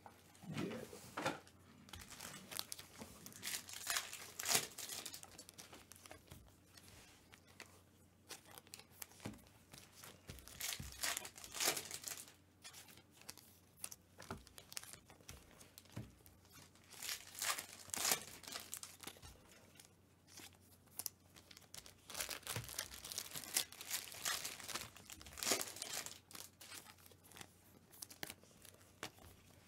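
Foil trading-card pack wrappers crinkling and tearing as packs are opened and cards are handled, in irregular rustling bursts every few seconds.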